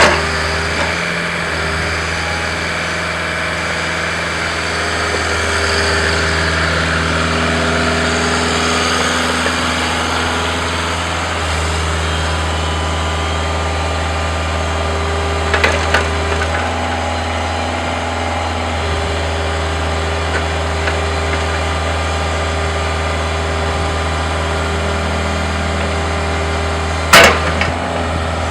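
Bobcat 430 mini excavator's diesel engine running steadily, its note shifting up and down several times as the hydraulics take load. Sharp loud knocks come at the start, about halfway through and near the end.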